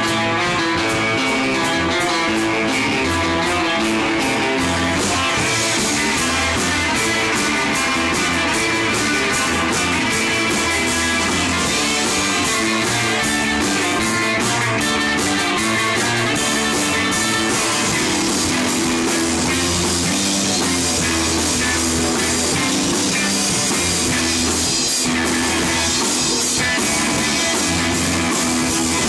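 Live rock band playing loudly and steadily: electric guitars through amplifiers over a drum kit.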